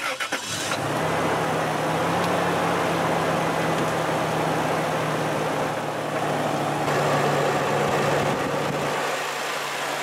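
Toyota 3.4-litre V6 (5VZ-FE) starting, catching under a second in, then idling steadily. It is running after a spark plug that had backed out of its hole and leaked exhaust has been reseated and torqued.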